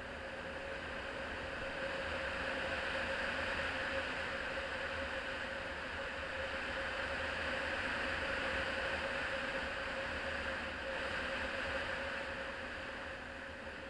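Honda CRF250L's single-cylinder four-stroke engine running at a steady pace on the move, under a constant rushing noise of wind and travel. It swells a little through the middle and eases slightly near the end.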